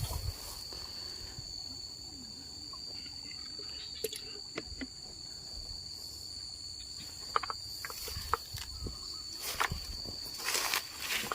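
Insects chirring in a steady, high thin tone, with scattered small clicks and knocks and a louder rustling patch near the end.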